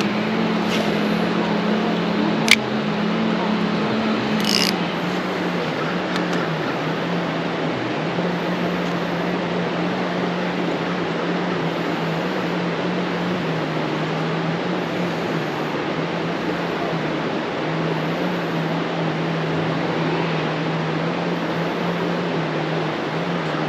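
Steady rushing of flowing creek water, with a low steady hum underneath and a sharp click about two and a half seconds in.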